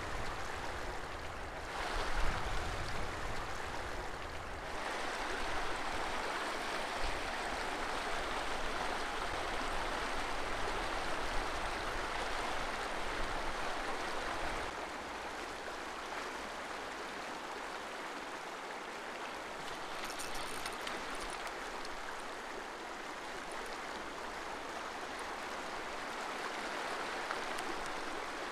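Creek water rushing, a steady wash of noise that shifts slightly in level, with a brief louder moment about two seconds in.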